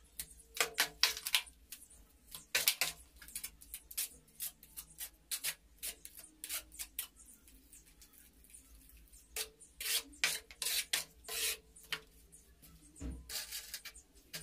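Steel trowel scraping and knocking against cement mortar in a pan: a run of short, irregular scrapes and taps, sparser in the middle, busier again after about nine seconds.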